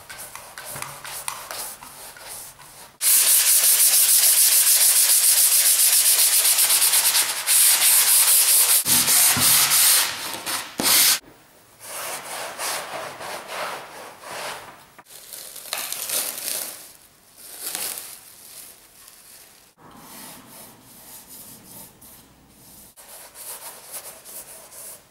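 Hand-sanding the primed surface of a stretched canvas: rough, scratchy rubbing strokes, very fast and loud for several seconds about three seconds in, then lighter strokes that come and go. Before that, a few slower strokes of a wide brush spreading the primer.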